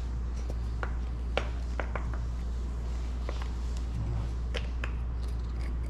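Scattered light clicks and taps of kitchen containers and utensils being handled while ingredients go into a marinade, over a steady low hum.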